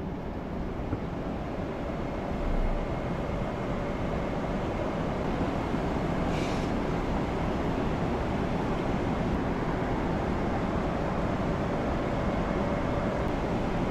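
Airliner cabin noise in flight: the steady roar of engines and airflow, with a faint steady hum through it and one brief hiss about six and a half seconds in.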